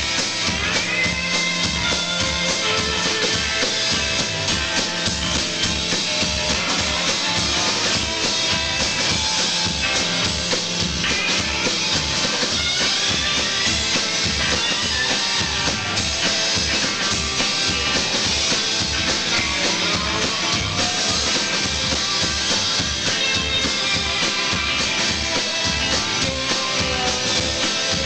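Live rock band playing an instrumental intro: a drum kit keeps a steady, driving beat under electric guitar lines with notes that bend and glide in pitch.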